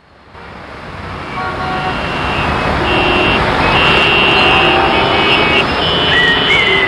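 Road traffic noise fading in from silence over the first couple of seconds, with several car horns honking over it.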